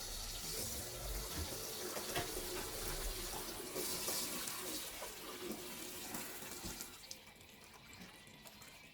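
Tap water running into a sink while a dirty vacuum cleaner filter is rinsed by hand; the flow stops about seven seconds in.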